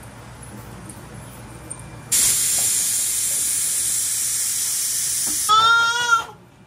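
Stovetop pressure cooker letting off steam: about two seconds in, a loud steady hiss starts and runs for about three and a half seconds, then ends in a short, high whistling tone. It is the cooker's whistle, the sign that it has come up to pressure.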